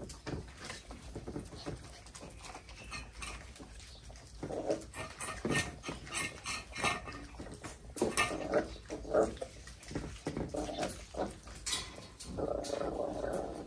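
Corgi puppies eating together from a metal bowl: irregular chewing, clicks and clinks against the bowl, with short puppy noises now and then, the longest near the end.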